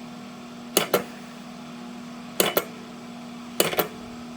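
Vintage 8-track player's track-change mechanism clicking through the programs as its button is pressed: a double click about every second and a half, over a steady mains hum from the running player.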